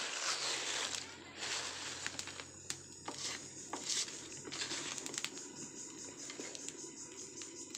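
Air blown through a pipe into a leaf-fired clay stove in several breathy rushes, the strongest in the first couple of seconds, to make the fire catch, while the burning dry leaves crackle.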